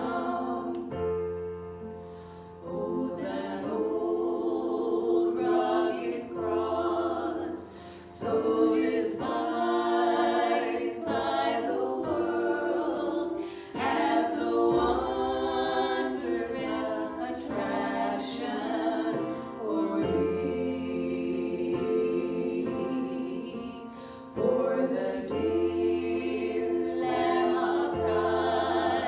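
Several voices singing a gospel song in sung phrases with short breaks between them, over a sustained low accompaniment.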